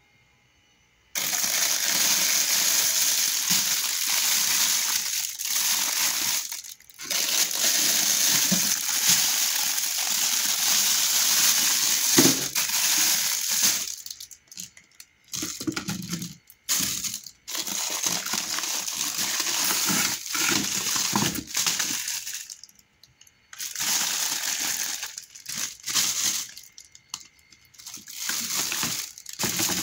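Plastic rustling and crinkling as bags and plastic bottles are handled, starting about a second in and running in long stretches broken by short pauses.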